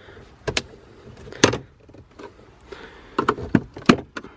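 Plastic trim clips on a Honda Accord's center console popping loose as the panel is pulled out: sharp cracking snaps that sound like something breaking but are normal. About six snaps, a loud one about a second and a half in and a quick run of them near the end.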